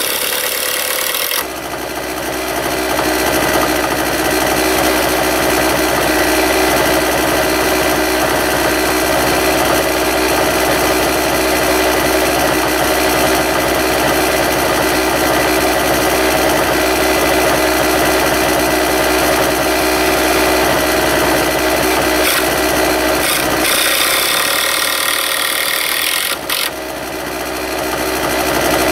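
A steady, unchanging mechanical hum like a small engine running. At the very start a cordless drill whirs, driving screws into the pine cabinet frame.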